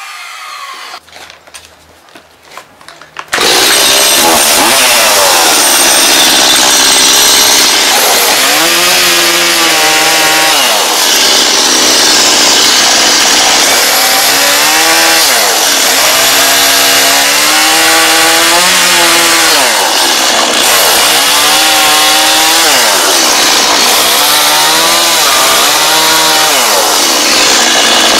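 Quiet with a few light knocks for about three seconds, then a petrol chainsaw comes in loud, cutting into a rimu timber blank. Its engine pitch rises and falls every few seconds as the chain is worked through the wood.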